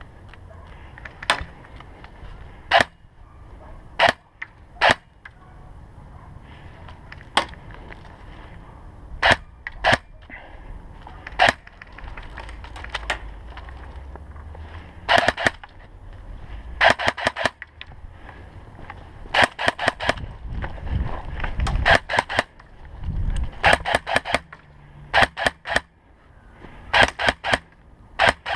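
Airsoft guns firing during a game. Single shots are a second or more apart at first, then from about halfway come quick volleys of three to five shots each.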